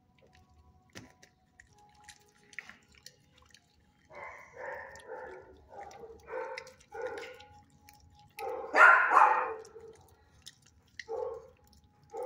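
A dog barking in a run of short barks, with the loudest a little past the middle and a couple more near the end; a few faint clicks come before them.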